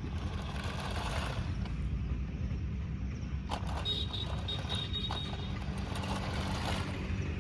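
Toy RC car driving, its small electric motor and gears whirring in swells, with a few sharp clicks over a steady low hum.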